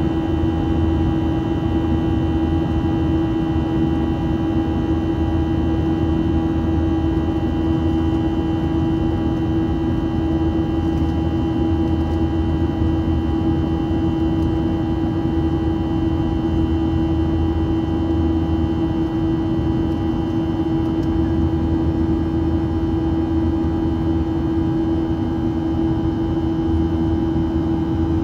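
Cabin noise inside a Boeing 737-700 climbing after takeoff: a steady rush of airflow and drone from its CFM56-7B turbofans, with a constant hum running through it.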